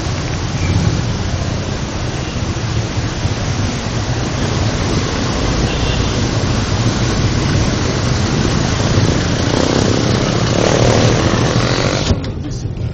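Loud, steady running noise of a moving motor vehicle: a constant hiss over a low rumble. Near the end the hiss cuts off suddenly and the lower rumble goes on.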